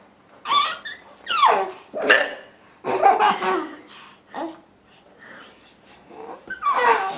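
A baby laughing in a run of high, squealing bursts, each sliding down in pitch, with a lull about five seconds in.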